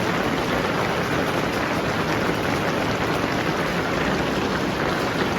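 Heavy rain mixed with small hail falling, a steady dense patter of many small hits.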